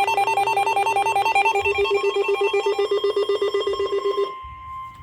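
Emergency Alert System warning tones: a fast, rapidly pulsing electronic warble, then a little over four seconds in it cuts off and a single steady alert tone begins.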